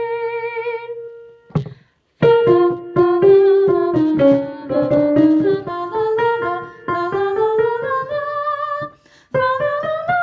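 Soprano voice singing a madrigal melody with vibrato over piano. A long held note ends about a second in. After a short break the music resumes with a run of quick piano notes under the moving sung line, pausing briefly near the end.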